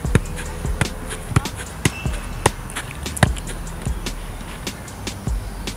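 A football being juggled, struck by foot and knee in an uneven run of sharp thuds, roughly one or two touches a second.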